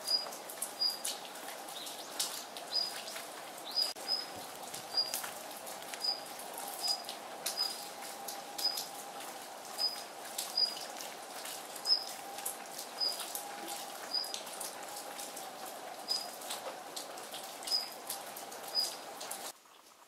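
Female Daurian redstart calling: a short, high, thin note repeated roughly once a second, over a patter of scattered sharp ticks and a faint steady hum. The sound cuts off abruptly near the end.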